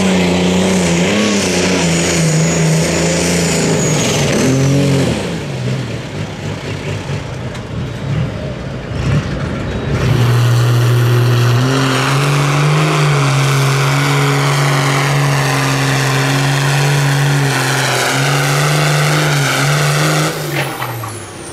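Tractor-pulling tractor engines running hard under load. First a red pulling tractor's engine surges up and down in pitch. After a cut, a John Deere tractor's engine is held at high revs. Near the end it drops away with a falling pitch as the pull ends.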